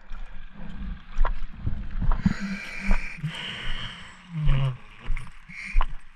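Scuba gear being handled on a boat deck: irregular knocks, clicks and rustles, with a short hiss about two to four seconds in, over a low rumble of wind on the microphone.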